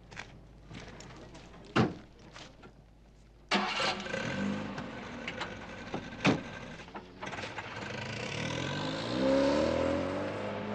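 A car door shuts with a thump, then a car engine starts about three and a half seconds in and runs; a second door slams, and the engine revs up as the car pulls away.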